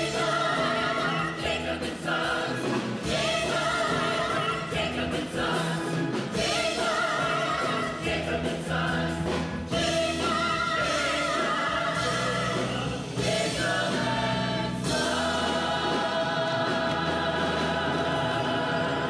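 Large chorus singing a musical-theatre number with instrumental accompaniment, the voices settling onto one long held chord for the last four seconds or so.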